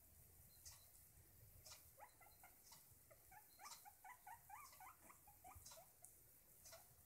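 Guinea pig making soft, short rising squeaks, with a quick run of them in the middle.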